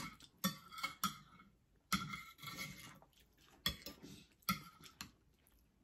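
Spoons clinking and scraping against porcelain bowls while eating, about six light, irregular clinks, some with a short ring.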